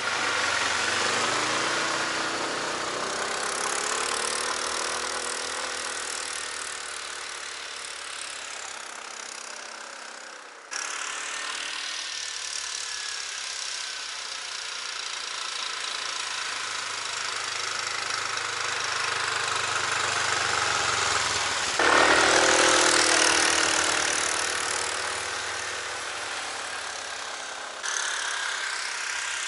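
Homemade SM-002 snowmobile with a 20 hp Lifan engine running as it drives through deep snow, the engine pitch rising and falling with a faint whine over it. The sound jumps abruptly about 11, 22 and 28 seconds in.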